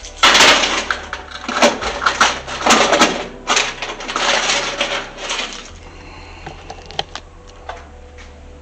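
Coins jingling and clattering in the metal coin box of a coin-operated washing machine as they are handled and scooped out, with clanks of the metal box. The jingling stops about six seconds in, leaving a few light clicks.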